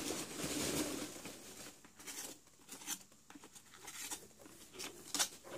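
Packing material rustling and crinkling as hands rummage through a cardboard box, steady for about the first second, then broken into scattered light crackles and taps.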